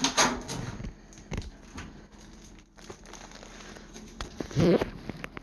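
Cardboard and plastic packaging being handled while a toaster oven is unpacked: crinkling, rustling and scattered knocks, with one short louder sound near the end.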